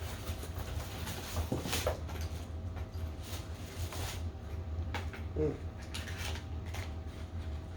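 Air-rifle box and packaging being handled: scattered rustles and light knocks, with a short squeak about five and a half seconds in, over a steady low hum.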